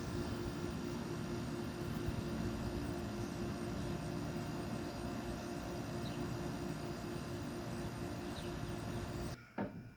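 2002 Whirlpool Gold 6500 BTU window air conditioner running, its Rechi rotary compressor and condenser fan giving a steady hum with a few held tones. The sound cuts off suddenly near the end.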